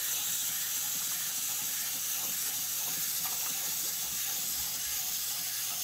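Steady high hiss of background noise with a few faint clicks.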